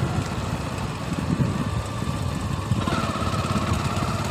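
Motorcycle engine running while riding at speed, with wind rumbling on the microphone. A faint whine joins about three seconds in and slowly rises in pitch.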